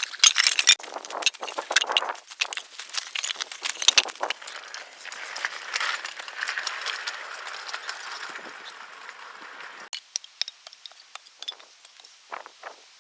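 Metal clinking and rattling during hand work on light railway track, many sharp clinks at first, then a steady hiss for a few seconds that stops abruptly, followed by scattered light clicks.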